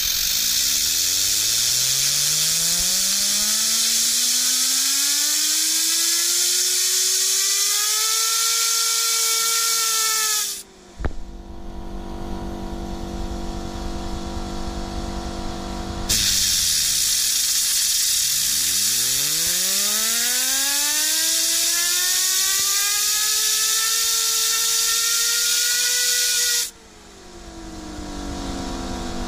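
Compressed-air nozzle hissing against a three-armed fidget spinner, whose whine climbs steadily in pitch as the air drives it faster. The air cuts off about a third of the way in and the spinner coasts with a steady hum. The air comes on again and the whine sinks to nothing as the spinner is braked and driven the other way, then climbs again, and it falls in pitch after the air stops near the end.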